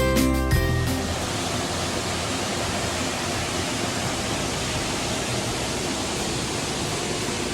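A waterfall's steady rushing water, an even wash of noise at a constant level. Background music cuts off within the first second.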